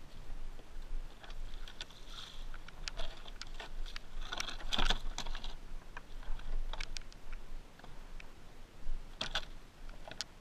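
Plastic car bumper cover being picked up and handled, giving light clicks and crackles, with a louder scraping clatter a little before halfway and another short clatter near the end.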